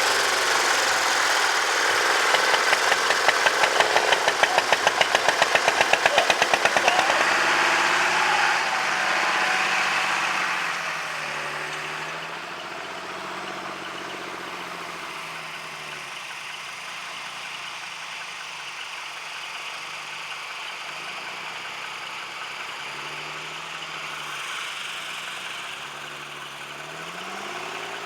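Tractor engine running close by, with a rapid, even pulsing knock for the first several seconds. It then drops to a quieter, steady run from about twelve seconds in, its pitch drifting up and down.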